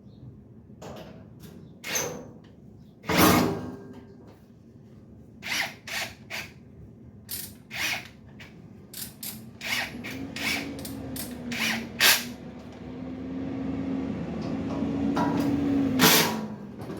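A series of sharp knocks and clicks as grill parts are handled and fitted, then from about ten seconds in a power drill runs for about seven seconds, its pitch wavering slightly as it drives the handle screws, and stops abruptly near the end.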